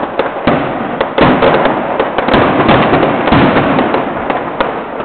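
Fireworks going off: a dense, rapid crackle of sharp pops, getting louder about a second in, then cutting off suddenly.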